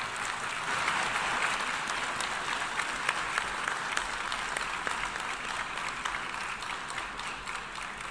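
Audience applauding, many hands clapping steadily, easing slightly near the end.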